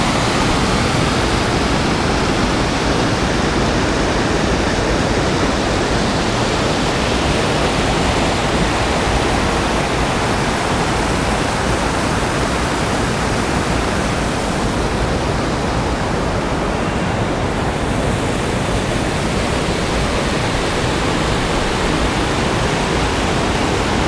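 The Virgin River rushing steadily over shallow rocky rapids.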